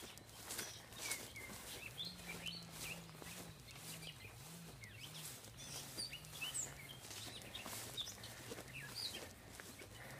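Small birds chirping here and there, over the repeated swish of tall grass brushing against a walker's legs. A faint low drone that wavers in pitch comes in about two seconds in and runs under them.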